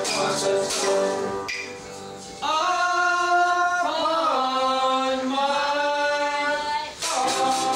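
Home jugband music with a shaker keeping time, a short lull about two seconds in, then men's voices singing three long held notes together before the rhythm picks up again near the end.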